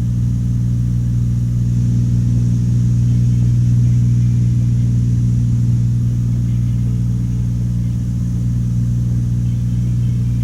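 Cessna 182's piston engine and propeller droning steadily in cruise, heard from inside the cockpit, with a low, even hum that swells slightly a few seconds in.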